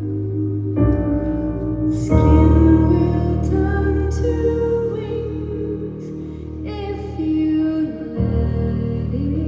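Live band music in a slow passage of sustained chords over held bass notes, the harmony shifting about a second in, again at about two seconds, and near the end.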